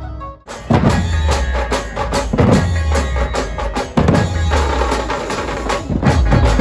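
Dhumal band music played through a loudspeaker rig: fast, dense drumming with heavy bass-drum beats. There is a short drop in the sound about half a second in, then the full beat comes in.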